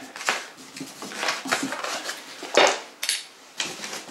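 Cardboard shipping box being rummaged and torn: a series of short crinkling rips and clattering knocks, the loudest about two and a half seconds in.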